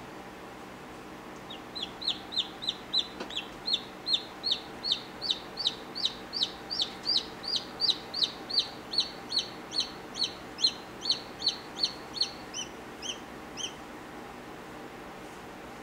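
Newly hatched chick peeping: a run of about thirty short peeps, each falling in pitch, at roughly two to three a second. They start about a second and a half in and thin out and stop near the end.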